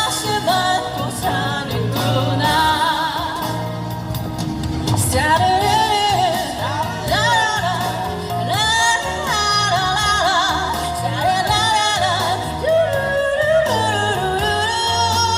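Live pop ballad performance: a wavering melodic lead line over a steady backing accompaniment with a repeating bass, no words heard.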